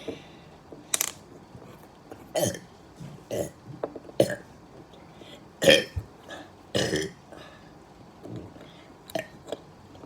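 A person burping over and over: a string of short, separate burps, about six strong ones with fainter ones between. The loudest comes a little before six seconds in.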